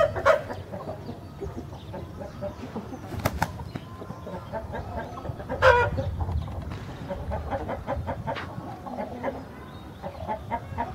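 Rooster flapping its wings near the start, then scattered clucks, with one short loud call a little past halfway.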